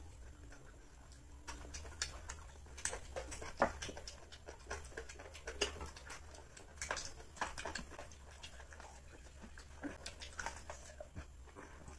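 Eating by hand: soft, irregular wet smacks and clicks of chewing and of fingers working rice on a plate.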